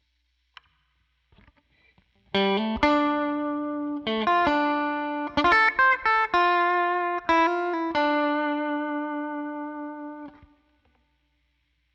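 Electric guitar with Zexcoil Legacy Signature P90-style pickups, played straight through a Helix Twin Reverb amp model with no other effects and the middle pickup in coil-cut mode. After about two seconds of quiet it plays a short phrase of picked notes, ending on a long held note that is cut off near the end.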